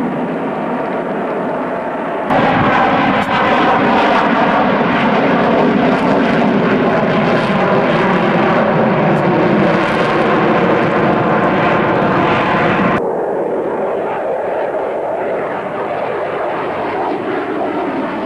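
Sukhoi Su-30 jet fighter's engines running loud in flight, a dense roar with steady whining tones through it. The sound jumps abruptly louder about two seconds in and drops back just as abruptly about thirteen seconds in.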